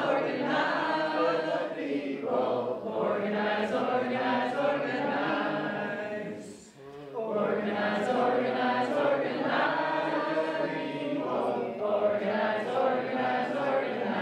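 A group of people singing together in unison, a chant-like protest song, with a short break for breath about halfway through.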